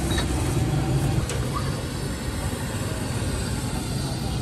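Busy street traffic: a steady rumble of passing vehicles, with a couple of faint clicks about a second and a half in.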